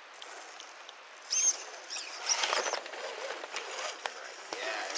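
Radio-controlled scale crawler picking its way over roots and dirt: faint scrabbling and ticking from its tyres and drivetrain, starting about a second in. A few short high chirps sound over it.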